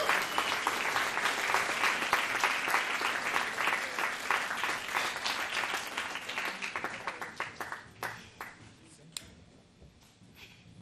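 Audience applauding, dying away over about seven seconds into a few last scattered claps.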